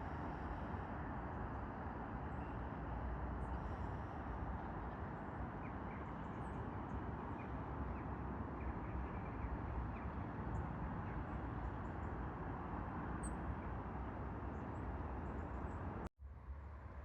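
Steady outdoor rushing ambience by a river, with low wind rumble on the microphone and faint scattered bird chirps. It cuts out suddenly for a moment near the end.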